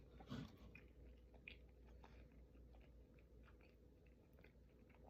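Faint chewing: soft mouth clicks and small wet crunches of someone eating close to the microphone, with a slightly louder bite about half a second in.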